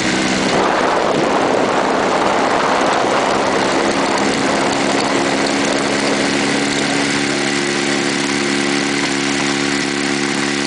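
Quicksilver MX ultralight's engine and pusher propeller running steadily while taxiing over snow. A rush of noise covers the engine note for a few seconds near the start.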